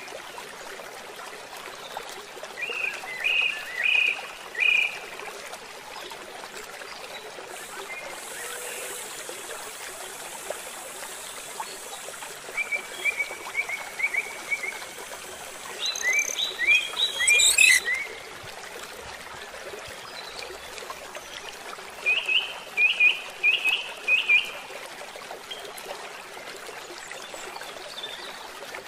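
Steady hiss of running water with birds calling over it in four short bouts of quick high chirps.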